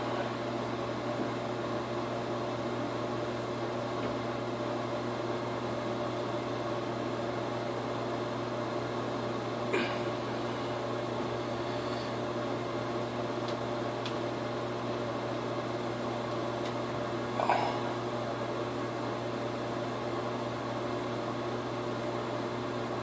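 A steady machine hum made of several fixed tones. Two brief sharp sounds break in, one about ten seconds in and a louder one near seventeen seconds.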